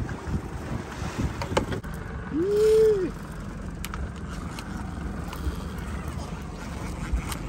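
Wind and water noise on a small boat at sea, with a few light clicks and knocks. About two and a half seconds in, a short tone rises and falls, the loudest sound in the stretch.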